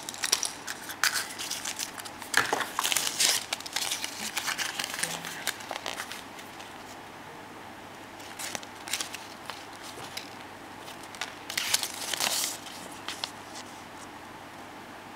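Thin plastic packaging from a chocolate surprise egg's toy crinkling and crackling as it is handled, with small sharp clicks. Busy for the first six seconds, then two shorter bursts later on.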